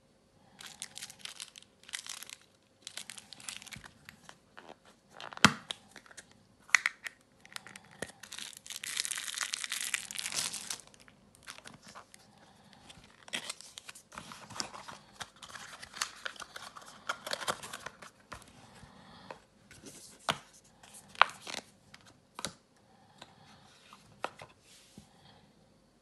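Clear plastic wrapper crinkling and rustling as it is handled, in short irregular bursts with a longer, denser stretch about eight to eleven seconds in. A few sharp clicks stand out among the rustling.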